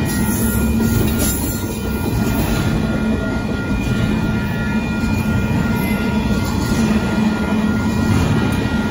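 BNSF intermodal freight train's double-stacked container well cars rolling past at speed: a loud, steady rumble of steel wheels on rail, with a few faint, thin high tones held above it.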